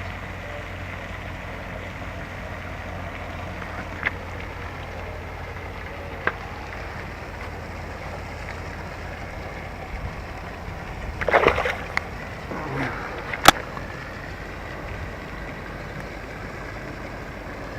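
Steady outdoor water ambience at a fishing spot, with a few short knocks and small splashes. The loudest are a brief splashy burst about eleven seconds in and a sharp click about two seconds later.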